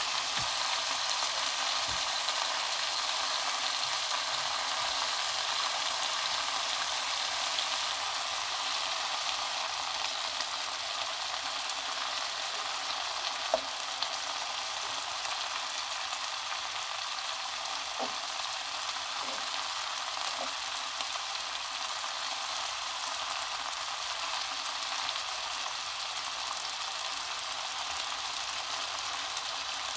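Food sizzling steadily as it fries in a hot pan, with a few faint clicks in the second half.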